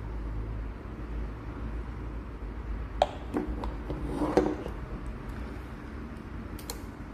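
Handling noise from a plastic dual-lens Wi-Fi security camera: a sharp click about three seconds in, then a few more clicks and knocks as it is set back down on the table, and two small clicks near the end, over a steady low background rumble.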